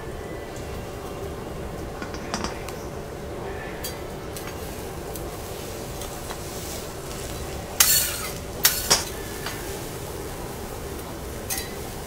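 Metal spatula and stainless steel dome cover clanking and scraping on a steel teppanyaki griddle: a light clink about two seconds in, a cluster of sharp metallic hits about eight seconds in, and another near the end, over a steady kitchen hum.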